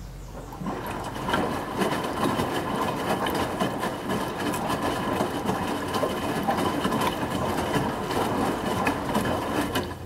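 Midea HealthGuard Smart 13 kg front-loading washing machine tumbling wet white laundry during a rinse. The drum motor whines steadily over the sloshing of water and clothes, starting about a second in.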